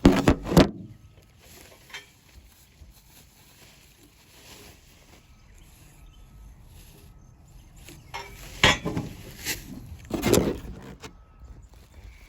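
Metal clinks and knocks from shorty exhaust headers being unpacked and handled: two sharp knocks right at the start, a quieter stretch, then a few more knocks about three quarters of the way in.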